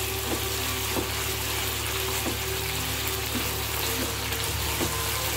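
Mushroom curry sizzling in a nonstick wok while a silicone spatula stirs it, with faint scrapes of the spatula about once a second over the steady sizzle.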